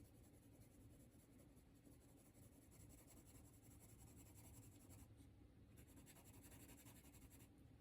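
Faint scratching of a hard H-grade graphite pencil shading on paper, in quick repeated strokes, with a short pause about five seconds in.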